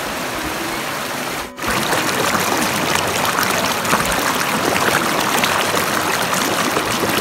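Fast, muddy stream water rushing and churning over rocks in a shallow rapid. About a second and a half in, the sound cuts out for a moment and comes back louder and closer, the water splashing right by the microphone.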